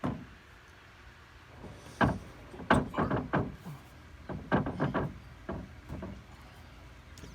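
An irregular series of knocks and thuds as composite deck boards are handled and set into place on the deck frame. One knock comes right at the start, then a dense cluster of about a dozen from about two to five seconds in, tailing off after six seconds.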